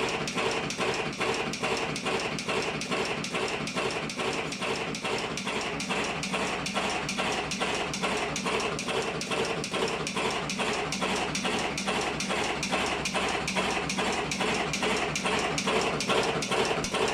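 Electric automatic cigarette-making machine running: a steady, even rhythm of rapid mechanical clicks over a constant hum.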